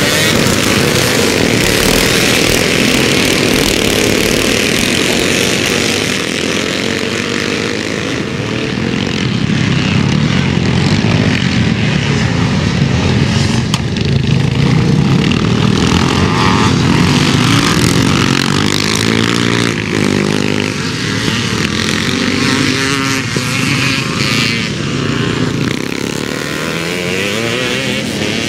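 Several vintage twinshock and evo-era motocross bikes racing past, their engines rising and falling in pitch over and over as the riders accelerate and back off.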